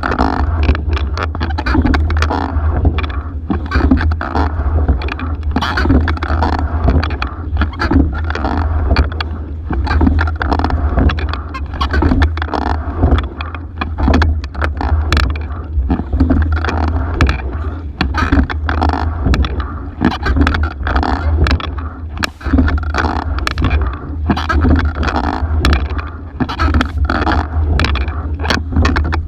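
Single scull under way in a race: water rushing along the hull over a steady low rumble. Frequent knocks and clatters come from the oars working in their oarlocks and the boat's fittings.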